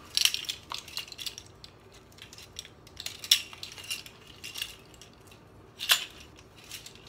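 Plastic measuring spoons on a ring clacking and a spice jar being handled as dried oregano is measured out: a few scattered light clicks and rattles, with a sharper click near the end.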